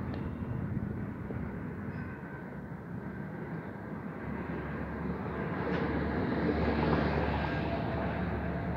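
Road traffic noise, a steady rumble that swells about six seconds in as a vehicle goes by.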